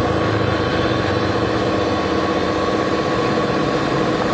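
Radio-controlled Caterpillar bulldozer model running as it pushes dirt: a steady mechanical whine and hum of its drive and hydraulics.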